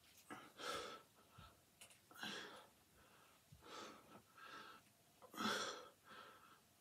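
A man breathing hard from exertion while curling dumbbells: a run of heavy, forceful breaths about one to one and a half seconds apart, three of them stronger than the rest.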